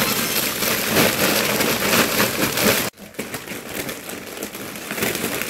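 Plastic snack wrappers crinkling and rustling as they are handled, loud for about three seconds, then dropping suddenly to a quieter crackle.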